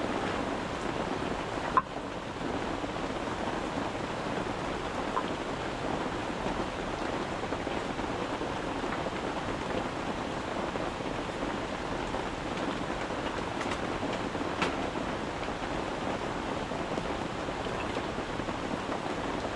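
Steady rain falling on a tent, an even rushing patter with a few sharper drop ticks, the loudest about two seconds in.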